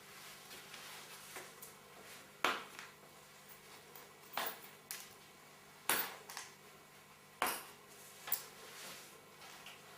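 Packaging and its contents being handled by hand: a series of sharp clicks and rustles, about six of them, a second or two apart.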